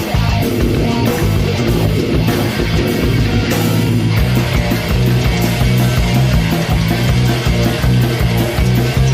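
Loud rock music with distorted electric guitar, bass and drums, in a heavy metal or punk style.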